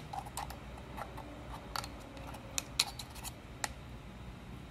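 Scattered light clicks and taps of a hand-held tool working grease down into the cavity of a Bridgeport mill's bull gear housing. The clicks are irregular, about eight of them.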